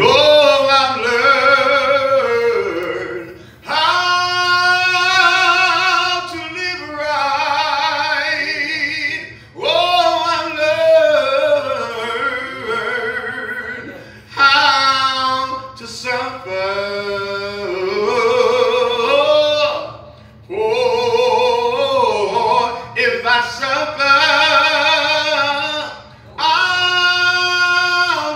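A solo voice singing a slow gospel song into a microphone, in long held, gliding phrases with short breaks for breath about every five to six seconds.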